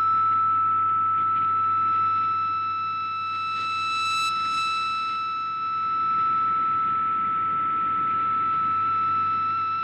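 MFSK picture transmission received on shortwave: one steady tone held at nearly one pitch, with shortwave hiss and a low hum under it, while the picture's dark rows are sent. Near the end the tone begins to waver slightly.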